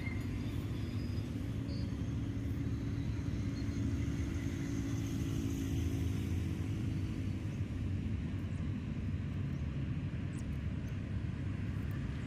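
A distant engine running with a steady low rumble and hum.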